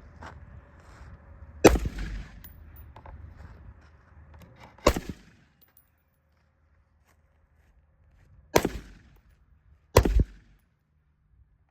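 AR pistol fired in four single shots, a few seconds apart, each sharp report followed by a short echo.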